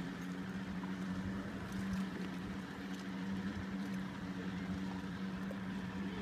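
A motorboat engine running steadily on the lake: an even, low hum that holds one pitch.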